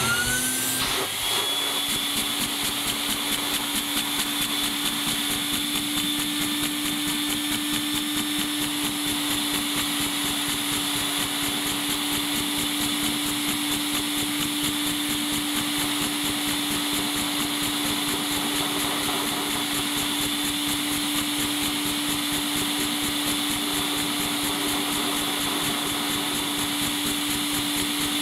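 A vacuum cleaner motor spins up with a rising whine at the start, then runs steadily. Its suction drives a LEGO vacuum engine with angled valves, which runs with rapid, even ticking.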